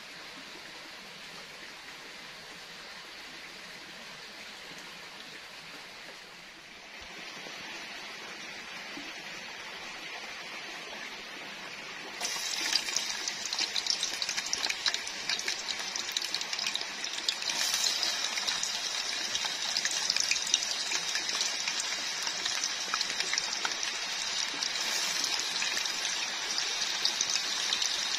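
Strips deep-frying in a small pot of hot oil over a wood fire, breaking into loud, dense sizzling and crackling about twelve seconds in. Before that, a steady hiss from the running stream beside the hearth.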